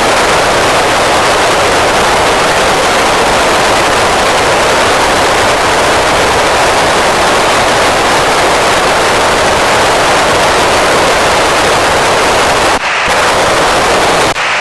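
Steady FM receiver hiss from an Icom ID-5100 tuned to the PO-101 satellite downlink: open-squelch noise with no station coming through. Near the end the hiss cuts out briefly twice, as a carrier quiets the receiver.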